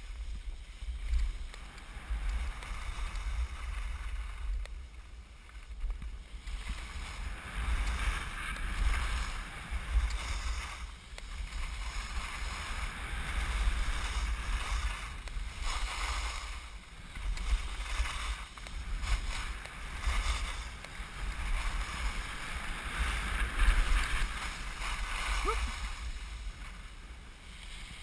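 Wind buffeting a GoPro's microphone with a gusty low rumble, over the hiss of skis scraping on packed snow that swells and fades with each turn.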